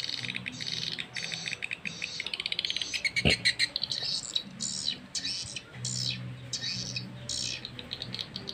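Recorded swiftlet call sound played through small tweeter speakers on a swiftlet-house amplifier: fast, continuous trains of high chirps and twitters, with a low droning tone coming and going beneath them. A single knock sounds a little over three seconds in.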